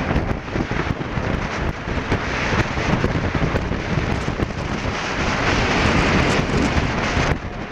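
Wind buffeting the microphone of a camera on a moving motorcycle: a loud, uneven rushing with heavy low rumbling gusts, easing briefly near the end.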